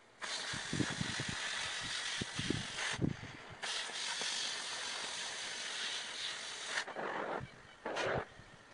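Oxy-fuel cutting torch hissing steadily as it cuts a circle out of steel plate, with low popping in the first few seconds and a brief break about three seconds in. The hiss stops about two seconds before the end, followed by two short hisses.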